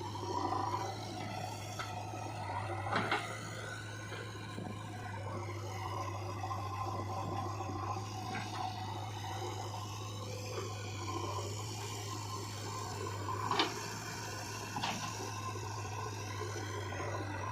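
A motor running steadily with a whine, broken by a few sharp knocks: one about three seconds in and two more near the end.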